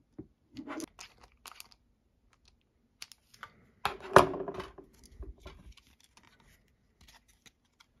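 Hard 3D-printed plastic parts being handled and fitted together: scattered small clicks, taps and scrapes, with a louder, longer creak about four seconds in.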